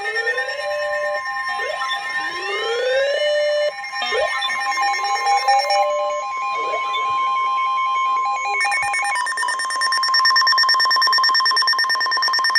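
Emergency Alert System tones from several out-of-sync radios and TV channels overlapping: repeated rising siren-like sweeps over steady alert tones, then a steady high alarm tone. From about two thirds of the way in, the rapid buzzing data bursts of the alert header codes take over.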